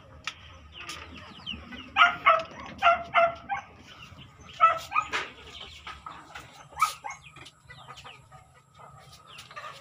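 Chickens clucking: a quick run of short, sharp clucks at about three a second from about two seconds in, then a few scattered clucks later.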